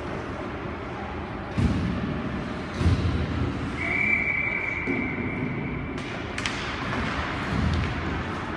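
Ice hockey rink sounds: two heavy thuds early on, then a referee's whistle blown once and held about two seconds, followed by a couple of sharp knocks.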